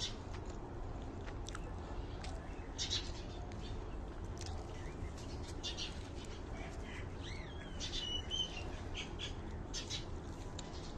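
Small birds chirping now and then in short high calls, with a few quick warbling glides about two-thirds of the way through, over a steady low rumble.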